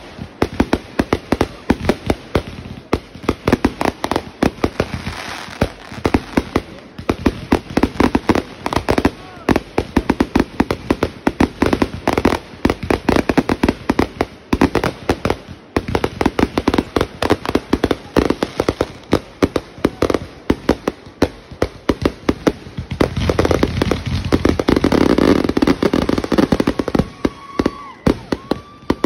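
Fireworks finale: a rapid, continuous barrage of bangs and crackles from many aerial shells bursting in quick succession, densest and loudest about three quarters of the way through. A short high-pitched tone sounds near the end.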